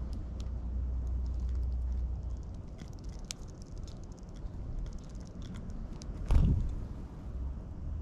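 Eurasian tree sparrows pecking at seed on a wooden board: many quick, light taps over a low rumble. A loud thump about six seconds in.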